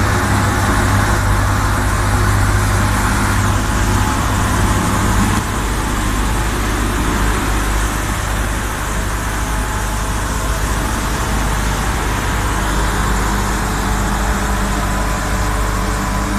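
Truck-mounted vacuum road sweeper at work, its diesel engine and suction system running steadily with a low hum. The level drops slightly about five seconds in.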